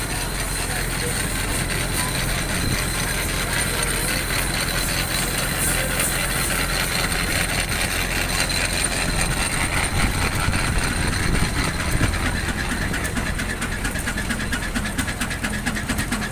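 Engine of a vintage road-construction machine running steadily with a low rumble, a fast regular ticking becoming clearer toward the end.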